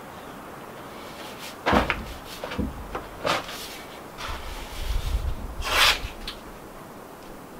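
Handling noises from a long blue tube stood on end on a tarp over wooden porch boards: a few separate knocks and scrapes in the first half, then a stretch of rubbing with low thumps, the sharpest knocks about two seconds in and near the end of the rubbing.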